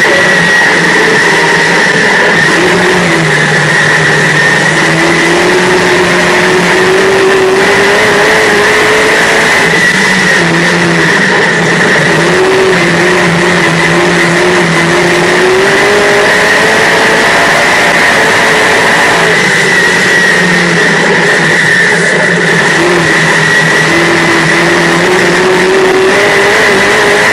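Dirt-track modified race car's V8 engine heard from inside the cockpit at racing speed, loud and continuous: the pitch climbs for several seconds as the car accelerates down a straight, then drops as the driver lifts for the turn, about three times. A steady high whine runs underneath.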